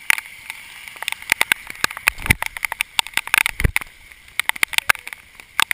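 Heavy rain in a downpour: a steady hiss with dense, irregular drop strikes landing close to the microphone, and two heavier low thumps in the middle.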